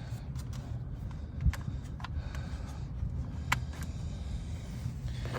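A few sharp plastic clicks and a dull knock as a car door's plastic window-switch panel is pried and worked loose with a trim tool, over a low steady rumble.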